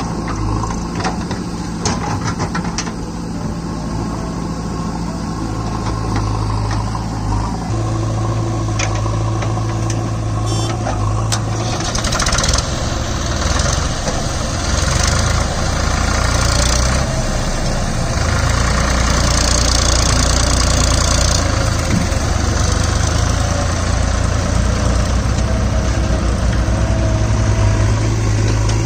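Diesel engines of a JCB backhoe loader and an HMT 3522 tractor running, with a few knocks in the first seconds. From about twelve seconds in the sound grows louder as the tractor works to pull its fully loaded sand trolley.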